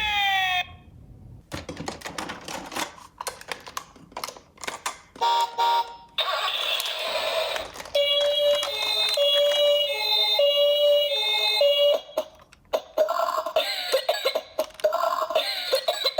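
Toy ambulance minicars' electronic sirens: a falling wail cuts off just after the start, then a run of clicks and clatters from the toy cars, then a two-tone hi-lo siren alternating between two pitches, with more electronic siren bursts near the end.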